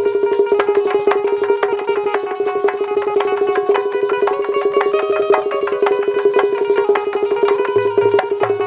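Instrumental interlude of Bundeli folk rai music: a melody played on a keyboard instrument over a steady held drone note, with fast, steady percussion strokes throughout.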